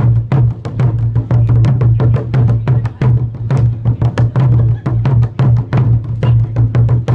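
Fast, loud drumming on large studded barrel drums, a driving beat of about five or six strokes a second over a steady low drone.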